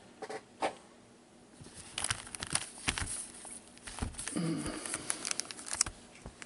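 Foil wrappers of trading-card packs crinkling and rustling as gloved hands handle the stack, in short intermittent bursts with small clicks.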